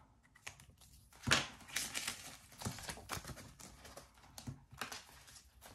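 Irregular light clicks and plastic rustling, the sharpest click about a second in: a marker being capped, then a plastic cash envelope being lifted out of a ring binder and handled.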